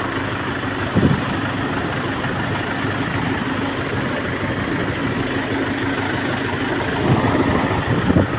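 Tractor engine running steadily as it wades through floodwater, with the wash of churned water around it and a single knock about a second in.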